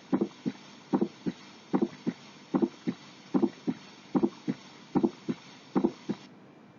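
Human heart sounds heard through a stethoscope: a regular two-part lub-dub beat, about 75 beats a minute, each louder first sound followed about a third of a second later by a softer second sound.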